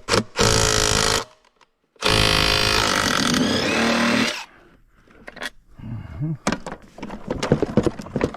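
A power tool runs in two steady bursts, the second about two seconds long, spinning out lawn mower engine mounting bolts. These are followed by lighter metal clicks and knocks as parts are handled.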